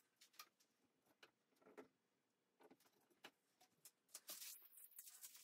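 Near silence, with a few faint, scattered clicks and light taps.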